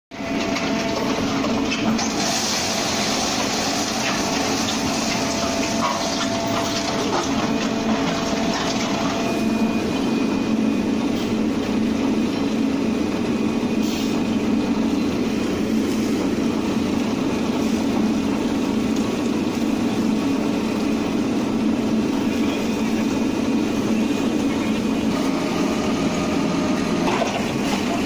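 SYZG wheel loader and a mobile concrete mixer-pump running together, a steady dense mechanical din, with a brighter hiss over it for roughly the first ten seconds.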